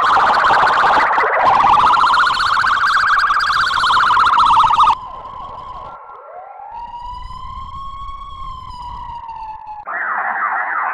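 Electronic siren sound effects. For about five seconds a loud, warbling wail rises and falls in pitch. It switches to a quieter, cleaner tone that glides up and then sinks slowly, and near the end another variation starts with quick sweeps.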